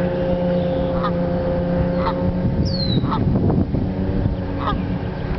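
Canada goose giving short clipped calls about once a second, over the steady hum of a small engine running nearby. The engine note drops away about halfway through.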